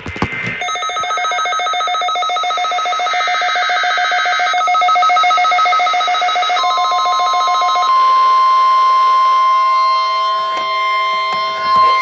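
NOAA Weather Radio test alert tones. A rapidly pulsing electronic alert tone sounds for about seven seconds, and a steady warning alarm tone comes in near the end of it and holds, signalling the start of a Required Weekly Test.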